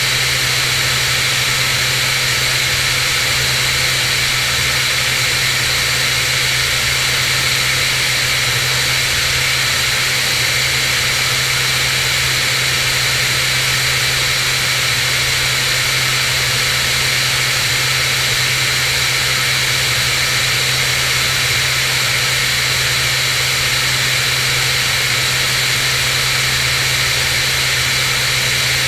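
Cirrus SR22's six-cylinder piston engine and propeller droning steadily in cruise flight, with a constant low hum under a loud, even rush of wind noise.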